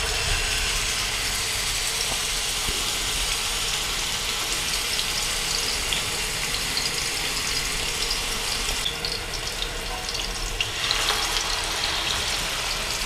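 Chapli kebabs of minced mutton shallow-frying in a pan of hot oil: a steady sizzle with fine crackling. It eases briefly about nine seconds in and grows louder again about two seconds later.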